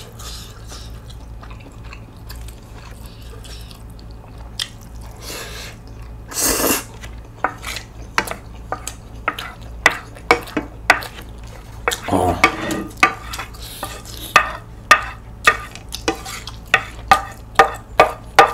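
A long wooden spoon scraping and stirring leftover noodles and sauce around a large white bowl, in regular short strokes about twice a second through the second half. Before the scraping starts there is quieter chewing.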